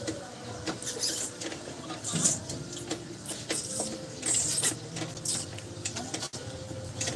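Light scratching and small metallic clicks from hands working at the rear drum brake of a Toyota HiAce van. The clicks come irregularly, with a few short scratchy rasps about one, two and four and a half seconds in.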